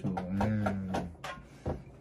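A man's voice held on one low note for about a second, like a drawn-out hum, then a few light clicks and a single soft knock near the end.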